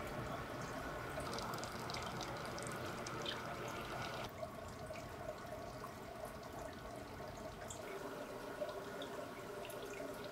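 Aquarium water trickling and dripping steadily, with small drip ticks; the sound changes abruptly twice, about 4 and 8 seconds in.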